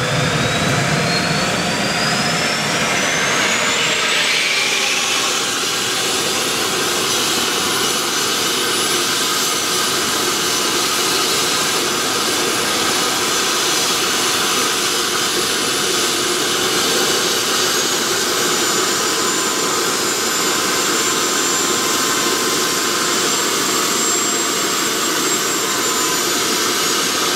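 Homemade turbojet engine (DIY gas turbine) spooling up just after light-off, its whine rising steadily in pitch over the first five seconds. It then runs steadily at speed, a loud rushing roar with a high, even whine, and a second high tone joins it partway through.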